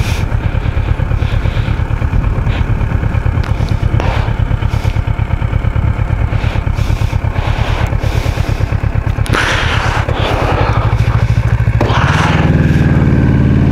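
Kawasaki Versys 650's parallel-twin engine running steadily while riding. Near the end the engine note grows louder and rises in pitch as the bike accelerates. Two short bursts of hiss come a little after halfway and near the end.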